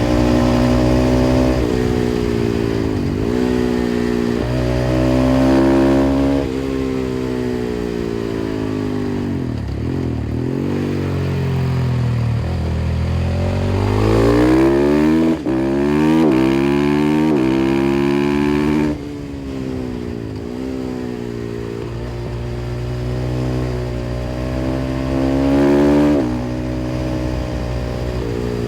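KTM 500 EXC-F single-cylinder four-stroke engine through an FMF exhaust, under hard riding: the pitch repeatedly climbs as it revs out and drops sharply at each gear change. It slows on a closed throttle at times, then pulls hard again.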